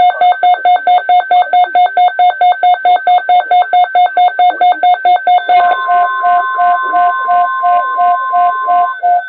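Emergency alert beeping for a severe thunderstorm warning: a rapid beep about four times a second. About five and a half seconds in, a steady warning alarm tone joins it and holds until near the end while the beeping continues.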